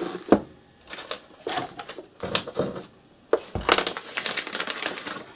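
Small metal parts and hand tools clicking and clinking as an RC truck's steering hub is taken apart by hand: scattered sharp clicks, then denser rattling after about three and a half seconds.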